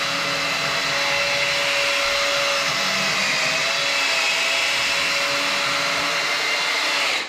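Electric paddle mixer running steadily, stirring a bucket of gypsum finishing compound; it cuts off just before the end.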